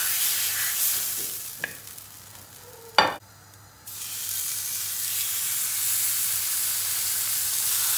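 Marinated beef tenderloin searing on a hot grill pan, sizzling. The sizzle dies down, then about three seconds in there is a sharp click, and the sizzle comes back louder as a raw fillet is laid into the pan.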